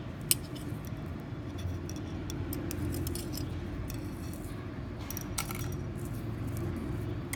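Small clicks and light taps of a fishing float and the snap clip on the line as they are handled and swapped, with one sharper click about a third of a second in. A steady low hum runs underneath.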